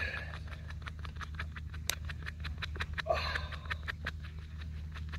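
Dog panting, about five quick breaths a second, with one brief louder sound about three seconds in.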